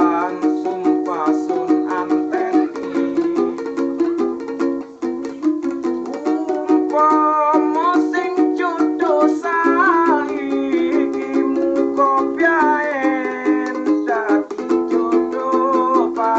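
A street musician's song: a small string instrument strummed in a fast, even rhythm, with a voice singing a wavering melody over it in phrases.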